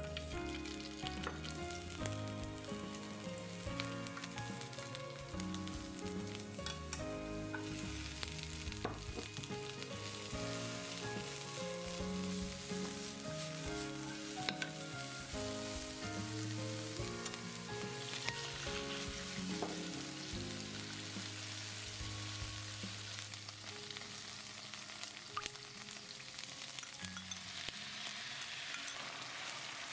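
Bamboo shoot and green and red peppers sizzling in hot oil in a nonstick frying pan as they are stir-fried, with a few light clicks of chopsticks. The sizzle grows louder in the second half, and soft background music plays under it throughout.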